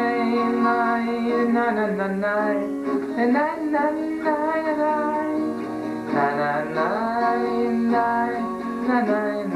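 A man singing a song while playing a classical acoustic guitar.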